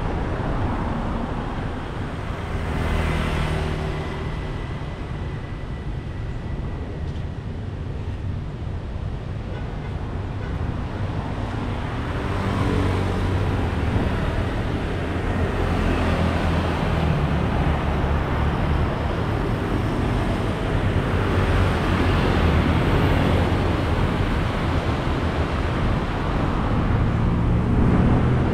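Road traffic passing close by: cars and motor scooters driving past in a steady stream, the engine hum and tyre noise swelling as each group goes by and growing louder near the end as a cluster of cars and motorbikes passes.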